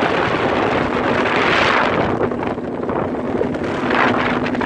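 Wind buffeting the microphone over the steady drone of a motorboat's engine, heard from aboard the boat while it is under way.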